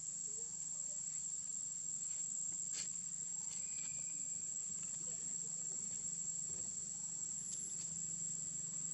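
Insects chirring in a steady, unbroken high-pitched drone, over a faint low hum.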